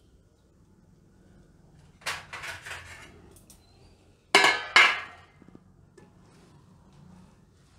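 Cookware and kitchen utensils clinking and clanking against a wok: a quick run of small knocks about two seconds in, then two louder clanks half a second apart a little over four seconds in.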